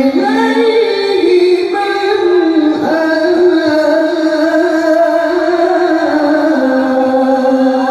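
A male qari chanting Qur'an recitation (tilawah) into a microphone. It is a single voice holding long, ornamented notes that step up and down in pitch, amplified through a PA.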